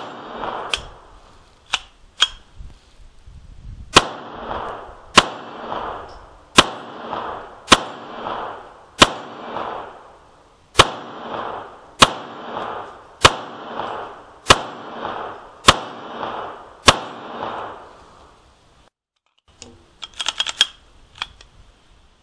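Smith & Wesson M&P22 pistol firing .22 LR rounds in slow, steady fire: about a dozen sharp cracks a little over a second apart, each with a short echo, after a few shots spaced more unevenly at the start. A cluster of small clicks follows near the end.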